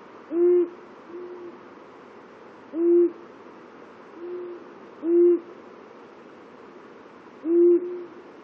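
Two male long-eared owls hooting in alternation at a territory border. One gives four loud, short, low hoots about two and a half seconds apart, and the other answers more faintly between them.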